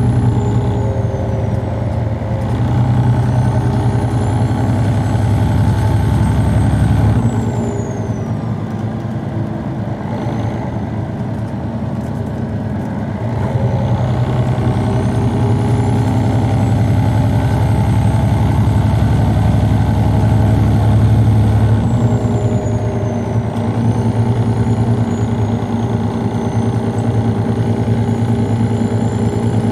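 MAN D2866 inline-six diesel of a Neoplan Centroliner city bus idling steadily while the bus stands. The deep running sound eases off about seven seconds in, returns around thirteen seconds, and eases again a little after twenty seconds. A faint high whine slowly rises and falls over it.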